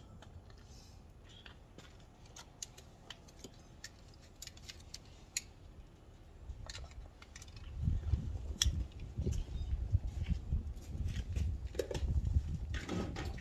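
Light scattered clicks and rattles of a battery jump-starter pack and its clamp cables being handled. From about eight seconds in, an irregular low rumbling buffeting takes over as the loudest sound.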